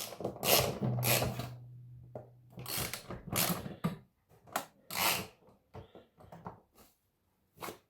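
Metal wall-mounting brackets and M8 bolts being handled and screwed into the back of a TV: a series of clicks, taps and scrapes, with a low steady hum for about two seconds near the start.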